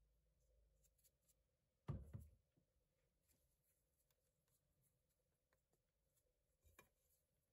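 Near silence, with faint rustling and patting of a hand working flour into raw chicken pieces on a plate, and one dull thump about two seconds in.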